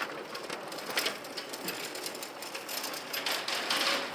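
Flatbed hand cart loaded with plastic crab baskets rattling as it is pushed across a concrete floor: a dense, irregular clatter of small knocks.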